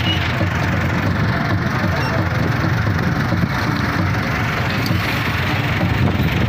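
Tractor diesel engine running steadily, heard close up from the tractor itself.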